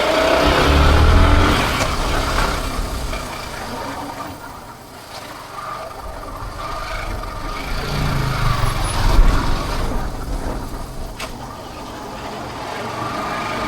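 Road vehicle engines in traffic, rising and fading: loudest about a second in and again around eight to nine seconds in.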